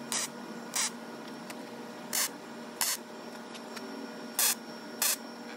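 Welder striking six short tack welds, each a brief crackling hiss, in three pairs spaced about two seconds apart, over a steady low hum. The tacks join angle iron onto steel coupling nuts.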